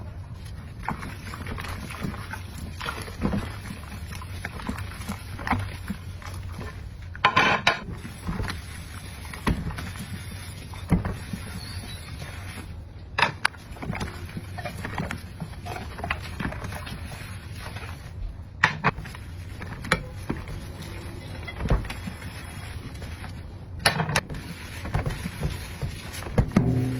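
Dishes being washed by hand: water sloshing with dishes and utensils clinking and knocking against each other every second or so, over a steady low hum. Louder clatters come about seven seconds in, around thirteen and nineteen seconds, and near the end.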